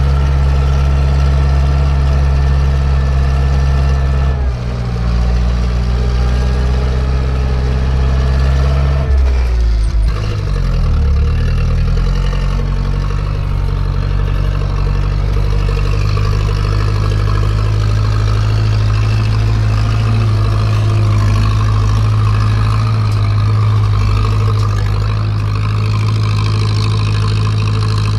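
Zetor 7045 tractor's four-cylinder diesel engine running as it drives, heard from inside the cab. The engine note changes about four seconds in and shifts again, sliding in pitch, between about nine and twelve seconds before settling into a steady run.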